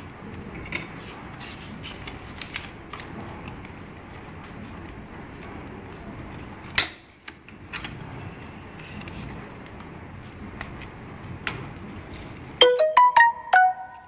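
Clicks and light knocks of hands fitting the label web and rollers on a flat labeling machine, over a steady background hiss. Near the end comes a quick electronic tune of about six short notes stepping up and down, like a phone's ringtone or notification.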